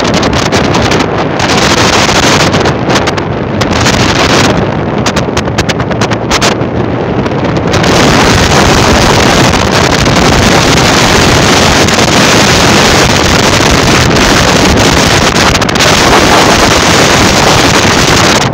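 Loud wind buffeting and rushing over the microphone of a camera travelling fast along a road, getting steadier and a little louder about eight seconds in.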